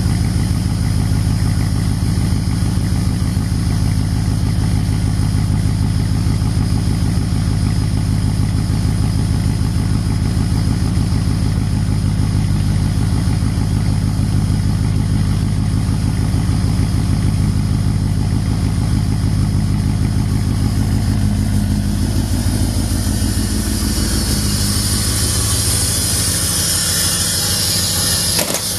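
An engine running steadily with a low hum, and a hiss that grows louder over the last several seconds.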